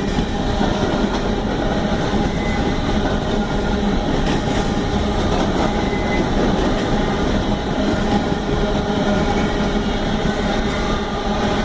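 Freight train cars rolling past: a steady, loud rumble of wheels on rail with some clickety-clack and a few held ringing tones.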